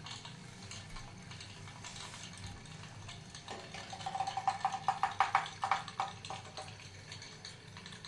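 Rattandeep tinplate pop-pop steam tug boat putting: its boiler diaphragm makes a rapid, buzzy ticking that starts about three and a half seconds in and dies away near the end, with only faint water sound before it.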